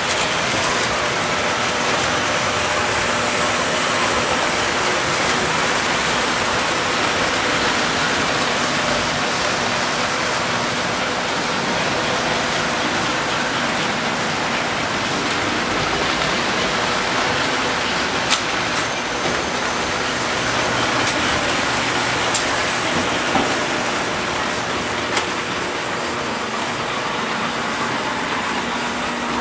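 Several toy electric trains running at once on metal track: a steady whirring rumble of motors and wheels, with a few sharp clicks about two-thirds of the way through.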